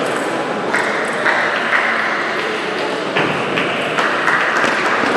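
Table tennis ball clicking off bats and table in a rally, sharp knocks roughly every half second over a steady background hiss.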